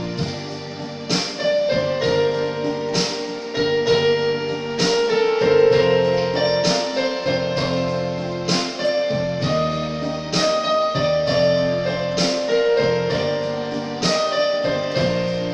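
Electronic keyboard playing a slow accompaniment: held chords over bass notes with a melody line on top, and a new chord struck about once a second.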